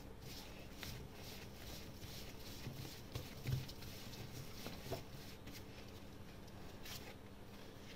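Hands gathering and patting a ball of soft yeast dough on a floured wooden worktop: faint, dull pats and thumps, a few of them standing out around the middle.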